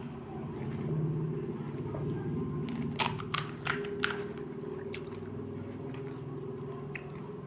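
Crisp pani puri shells crunching as they are bitten and chewed: about four sharp cracks in quick succession about three seconds in. A steady low background hum runs underneath.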